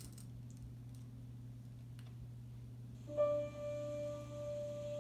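Faint room hum and a few light clicks, then about three seconds in an instrumental backing track starts with one long held note, the intro to a slow song.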